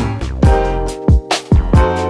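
Background music: an upbeat funk-style instrumental with bass, chords and a steady drum beat.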